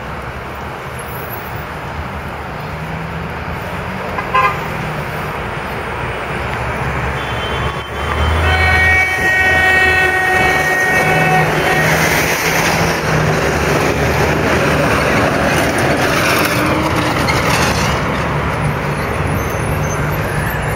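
Busy street traffic, with a short horn toot about four seconds in, then a vehicle horn held for about three and a half seconds near the middle. After the horn, the traffic noise grows louder as vehicles pass close by.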